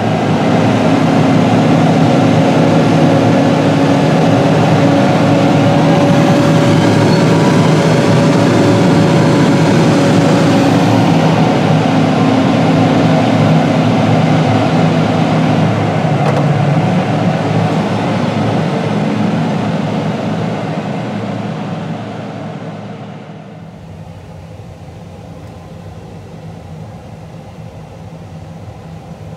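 Deutz-Fahr 9340TTV tractor's 7.8-litre diesel engine running steadily while working a silage pile with a dozer blade, heard from inside the cab, with a steady hum in the engine note. The sound weakens and grows markedly quieter about three quarters of the way through.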